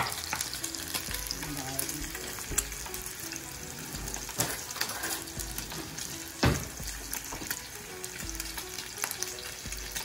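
Sliced meat sizzling steadily as it fries in oil in pans on a gas stove, with a few sharp kitchen clatters, the loudest about six and a half seconds in.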